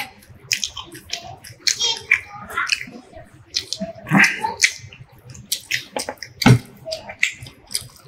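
Close-miked eating sounds: wet chewing and lip-smacking clicks, with fingers squishing rice and curry on plates. A louder sharp knock comes about six and a half seconds in.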